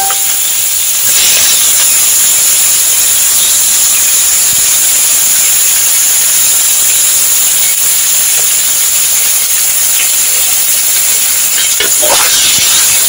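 Fish curry with greens and chilies sizzling in a hot pan, a steady hiss, with a utensil stirring and clattering briefly near the end.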